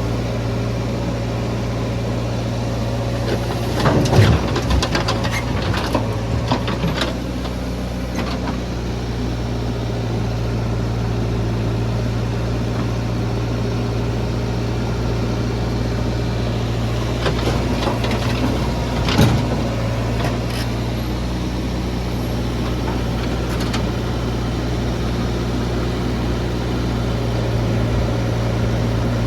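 Heavy diesel engine of a JCB 3DX backhoe loader running steadily while loading mud into a tractor trolley. Bursts of clatter and knocking come about four seconds in and again about nineteen seconds in.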